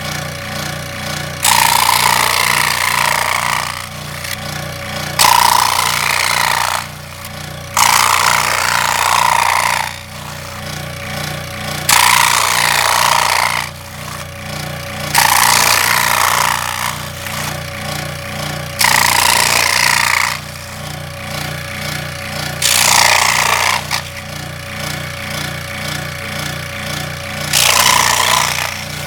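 Scroll saw running with a steady low hum, its blade rasping through cardboard in about eight spells of one to three seconds, one for each straight relief cut.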